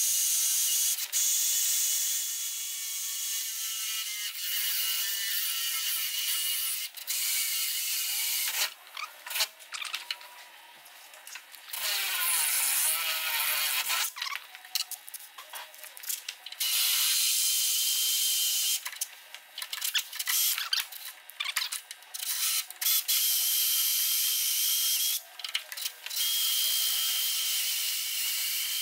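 Cordless battery drill boring holes through soft steel, running in long steady stretches with short stops and restarts between them.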